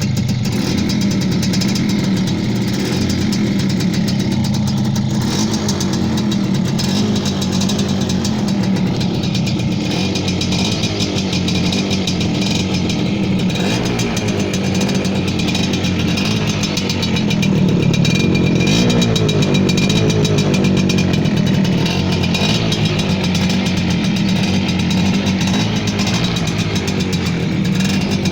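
Suzuki AX100's two-stroke single-cylinder engine running through its original stock exhaust, mostly idling steadily; about two-thirds of the way through it picks up a little, the pitch rising and then settling.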